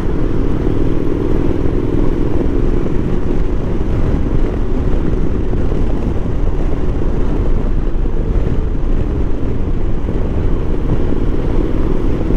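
Motorcycle riding at road speed, heard from a camera mounted on the bike: the engine runs steadily under a constant rush of wind noise on the microphone, with no change in speed.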